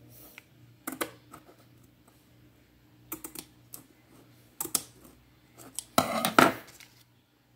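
Kitchen scissors clicking and snipping at a plastic seasoning sachet, a few sharp separate clicks, then a louder half-second clatter about six seconds in.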